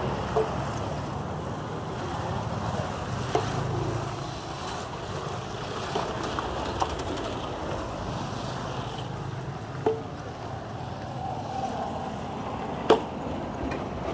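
Street traffic noise at a road construction site, with a truck engine running close by during the first few seconds. A few sharp knocks break through, the loudest near the end.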